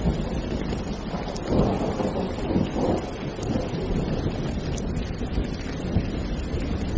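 Steady heavy rain with a low rumble of thunder that swells about a second and a half in and eases off again.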